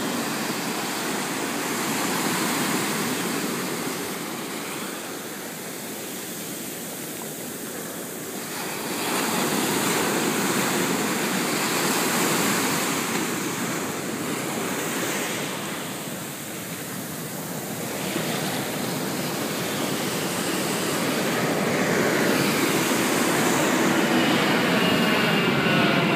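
Ocean surf washing in and out over the shallows, swelling and easing in long surges. In the last few seconds a jet airliner passing overhead adds a sweeping engine noise that grows louder.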